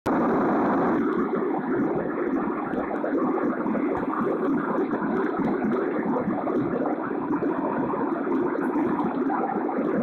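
A steady rushing noise at an even level throughout, with no distinct events.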